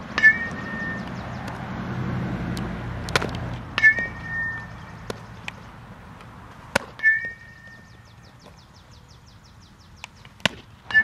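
Metal softball bat pinging as ground balls are hit, three times about three and a half seconds apart, each a sharp crack with a short ringing tone. Sharp knocks of the ball striking leather gloves fall between the hits.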